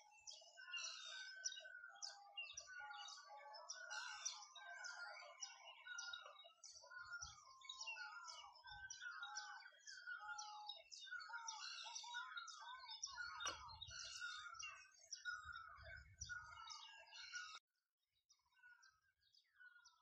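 A chorus of songbirds chirping and singing, with many short calls and gliding phrases overlapping without a break. The chorus cuts off abruptly about two seconds before the end, leaving a few faint chirps.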